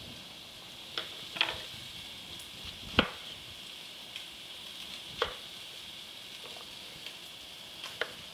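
Chef's knife cutting a tomato into wedges, the blade knocking on a wooden cutting board in a handful of sharp taps, the loudest about three seconds in. Under it, a steady sizzle of pork shoulder browning in its pot without added fat.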